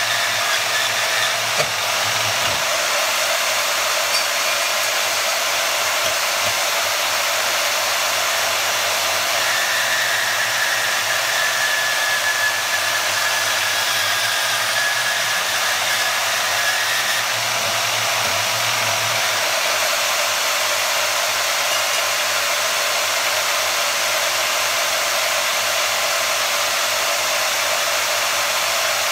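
Bauer 10-amp variable-speed portable bandsaw running steadily, a constant even motor-and-blade noise that does not change.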